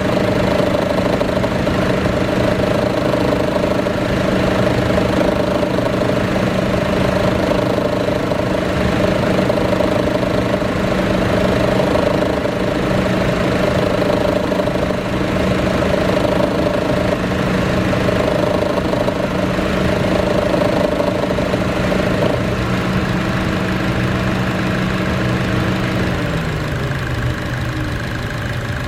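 2014 Chevy Cruze engine idling with the A/C on, with a loud, steady growling drone from under the exhaust manifold that a newly replaced A/C compressor has not cured. Near the end the drone's pitch slides down.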